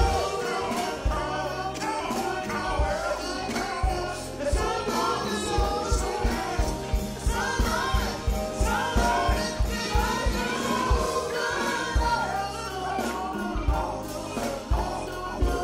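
Live band and singers performing a gospel-flavoured soul song, several voices singing together over a steady drum beat.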